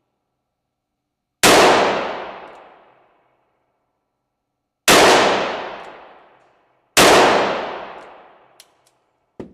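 Three shots from a Rossi .38 revolver, the second about three and a half seconds after the first and the third two seconds later, each followed by a long echoing decay in an indoor range. A short sharp click comes near the end.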